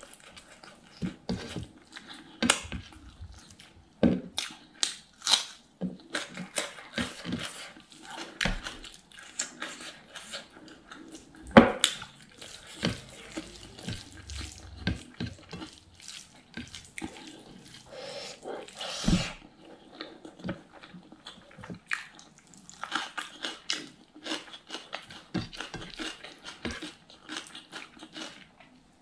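Close-miked mukbang eating sounds: fingers squishing and pulling apart sticky curried pork intestines, with wet chewing and lip smacks in an irregular run of short clicks, a few of them louder.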